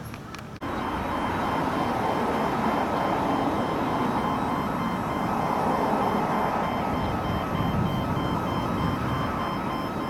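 Steady rush of distant city road traffic, which jumps louder about half a second in, with faint high repeating tones over it.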